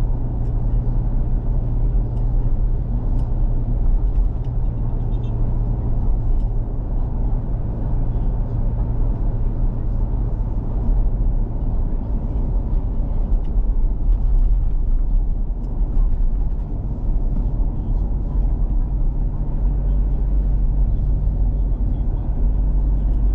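Steady engine and road rumble heard from inside the cabin of a Toyota Fortuner SUV cruising on a highway.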